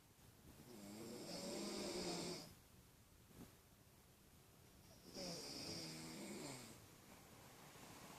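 A person snoring: two long snores about four seconds apart, each with a wavering pitch and a breathy hiss.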